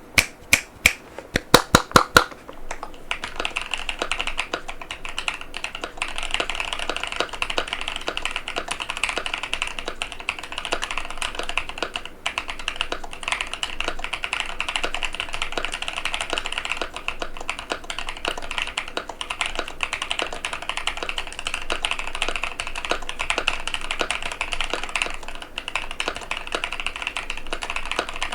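HYTE Keeb TKL mechanical keyboard with Durock White Lotus switches and PBT Cherry-profile keycaps being typed on: a handful of separate, louder key strikes in the first two seconds, then fast, continuous typing.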